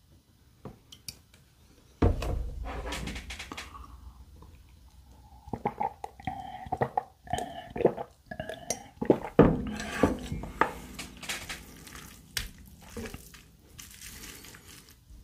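Glass jug of milk knocked as it is lifted, then several gulps of milk swallowed from it, and the glass set down again just after the middle with a sharp knock. Softer clicks of chopsticks in noodles follow near the end.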